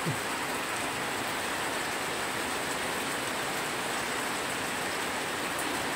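A steady, even hiss of noise with no distinct events in it.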